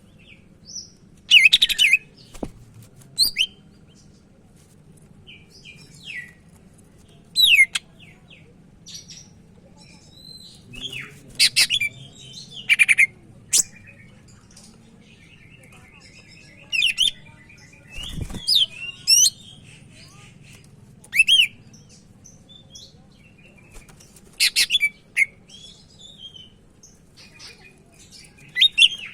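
Green leafbird (cucak ijo) singing: short, loud bursts of sharp, fast-sweeping high whistles and chattering notes, repeated every one to several seconds with short pauses between.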